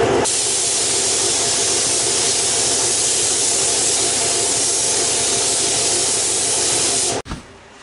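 SATA paint spray gun with a 1.4 mm tip spraying primer sealer: a steady, loud hiss of compressed air and atomised paint that stops abruptly about seven seconds in.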